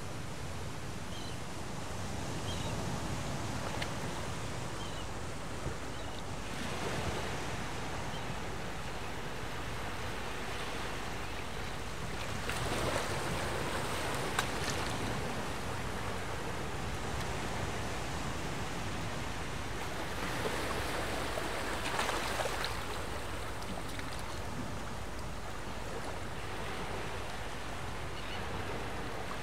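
Sea surf washing onto a sandy beach, a steady rushing that swells up three times as waves break and run in, with wind.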